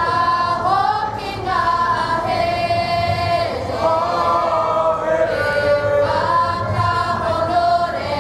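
Māori kapa haka group singing together as a choir, holding long notes that slide from one pitch to the next.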